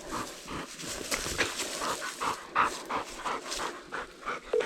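Deer recovery dog panting quickly and rhythmically, about three breaths a second, out of breath from holding a wounded buck at bay.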